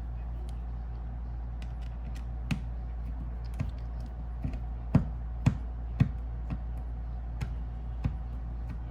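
Scattered small clicks and taps of hand tools and parts being handled on an iPad during screen removal, irregular and a dozen or so in number, the sharpest about halfway through, over a steady low hum.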